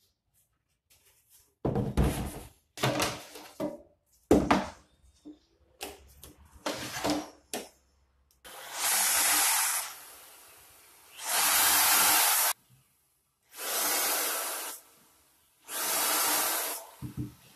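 White MDF cabinet panels knock and bump as they are handled and set in place. Then a corded electric drill bores into the MDF four times, each run lasting about a second and a half.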